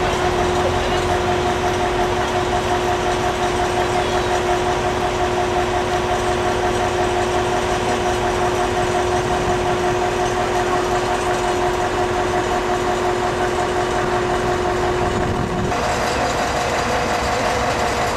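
Liebherr mobile crane's diesel engine running steadily at idle, a constant drone with a held tone in it. Near the end the tone steps to a slightly higher pitch.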